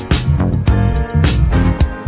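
Background music with a steady funk beat: drums and bass with guitar.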